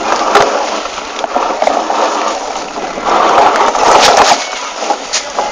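Mountain bike ridden along an overgrown trail: brush and branches rustling and scraping past, with sharp knocks and rattles from the bike over rough ground. Loudest about three seconds in.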